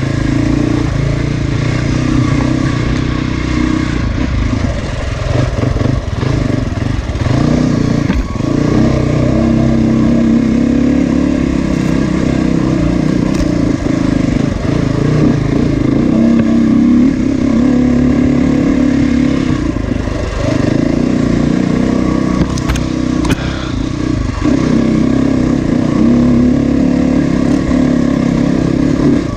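Dirt bike engine running hard as it is ridden along a trail, its pitch rising and falling with the throttle.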